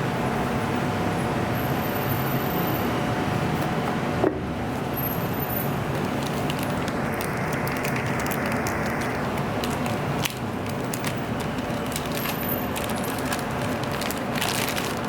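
Steady background noise with scattered clicks and crinkles of a Bluetooth speaker's box and packing being opened and handled, thickest in the last few seconds, and a single sharp knock about four seconds in.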